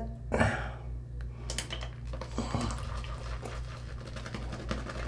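Fendrihan High Mountain white badger shaving brush whipping Proraso Green shave cream into lather in a shaving scuttle: a rapid, wet patter of many small clicks.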